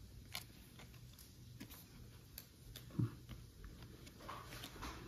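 Faint clicks and light taps of Topps baseball trading cards being handled and flipped through by hand, with one soft thump about three seconds in.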